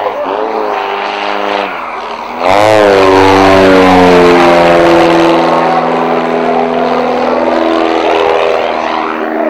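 Aerobatic propeller plane's engine running loud, getting suddenly much louder about two and a half seconds in; its pitch then drops and climbs again.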